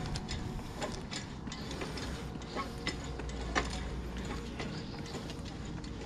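Metal hand water pump being worked by its lever: the handle and linkage click and clank at irregular intervals. No water comes out, because the pump is not working.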